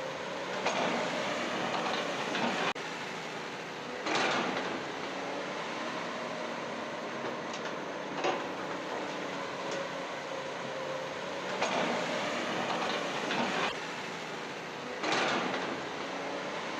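Small electric motors and plastic-and-metal gears of a radio-controlled toy excavator whirring and rattling steadily, rising in louder surges every three to four seconds as it works.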